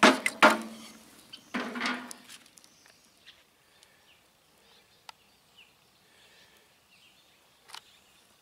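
Steel poker knocking and scraping oak logs in an offset smoker's steel firebox: a few loud clatters in the first two seconds. Then quiet outdoor ambience with faint bird chirps and a few sharp pops from the burning oak.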